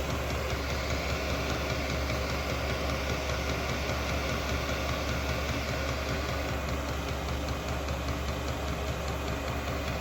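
Vevor Chinese diesel air heater running steadily after start-up: a constant hum of burner and blower with a strong low drone.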